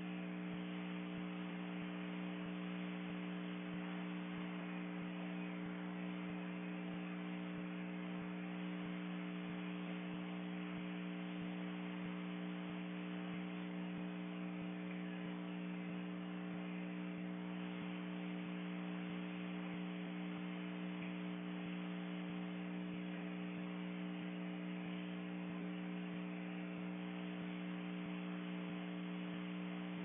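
Steady electrical hum made of several fixed low tones, with an even hiss above it, unchanging throughout.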